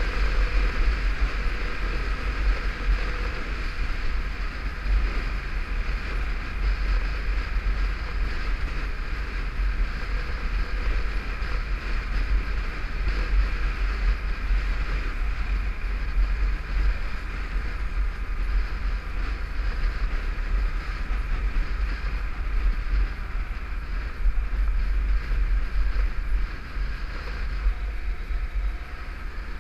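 Motorcycle riding at road speed: heavy wind rumble on a helmet-mounted microphone, with the bike's engine running steadily underneath. The level dips briefly near the end.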